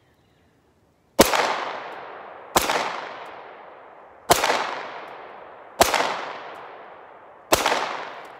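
Browning High Power pistol firing five single shots of 9mm NATO ammunition at an unhurried pace, the first about a second in and the rest roughly a second and a half apart. Each shot is followed by a long fading echo.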